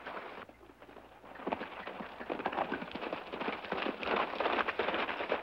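Hoofbeats of two horses galloping on a dirt trail. They start about a second and a half in and grow louder as the horses come closer.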